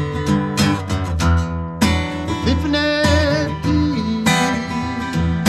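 Background music: acoustic guitar strumming chords in a steady rhythm, with a held, wavering sung note about three seconds in.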